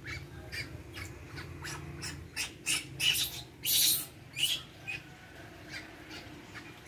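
Cloth towel rubbing briskly over a wet baby macaque's fur, a run of short scrubbing strokes that come thickest about halfway through, over a faint steady hum.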